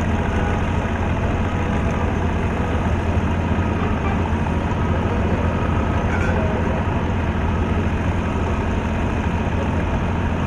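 Engine idling steadily, a constant low hum with no change in pace.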